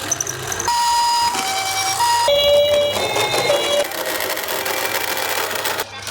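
Electronic two-tone sirens of toy ambulance minicars, switching between a high and a low note about every half second. A little over two seconds in, a lower-pitched siren takes over, followed by fainter wavering tones.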